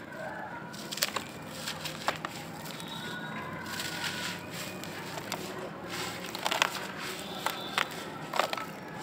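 Hands squeezing and crumbling clumps of dry, powdery grey earth: a soft gritty rustle broken by sharp crunches and cracks as clumps snap apart, clustered about a second in and again near the end.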